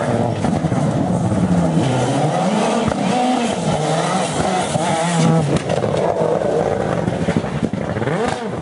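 Rally car engine revving hard through a stage, its pitch climbing and dropping again and again as it is worked up and down through the gears.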